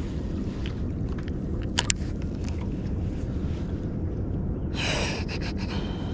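Steady wind and water noise around a small fishing boat. Two sharp clicks come just under two seconds in, and a short hissing rush about five seconds in.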